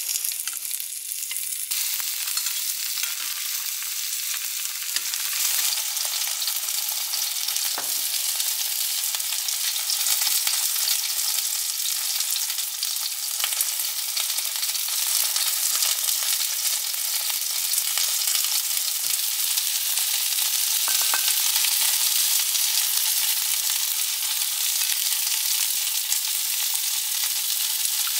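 Starch-coated tofu slices wrapped with strips of laver pan-frying in oil: a steady sizzle that starts suddenly as the pieces go into the hot pan, with a few faint clicks.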